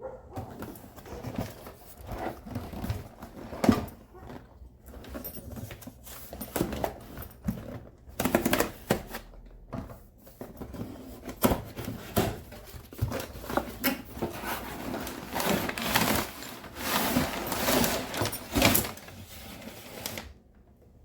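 A cardboard LEGO box being opened by hand: irregular clicks, knocks and tearing and rustling of cardboard and paper, with the busiest rustling about eight seconds in and again in the last few seconds.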